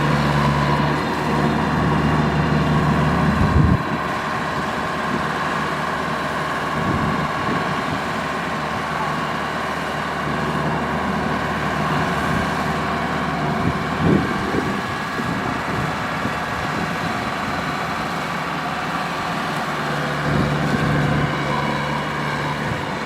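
Kubota DC-105X rice combine harvester running steadily while harvesting, its engine and threshing machinery giving a constant mechanical drone, with a deeper hum that eases about four seconds in and returns near the end.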